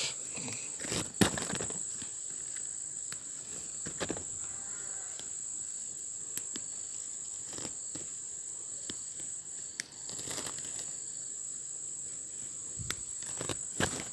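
Insects buzzing in one steady high-pitched drone throughout, with scattered rustles and clicks of leaves and stems as chili peppers are picked by hand from the plant.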